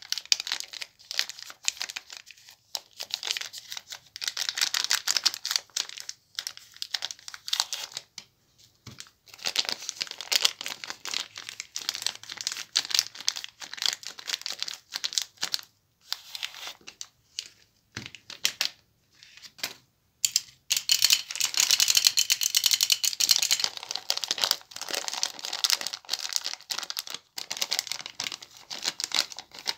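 Plastic candy wrappers crinkling and tearing as they are handled and torn open: first a Bounty bar's wrapper, then a Skittles packet. The crackling comes in bursts with short pauses between.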